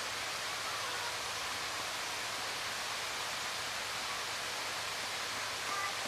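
Steady rushing outdoor background noise, with faint bird calls about a second in and near the end.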